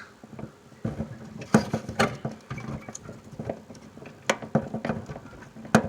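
Irregular small clicks and scrapes as wire spade connectors are worked loose from a furnace control board by hand, with a sharper click near the end.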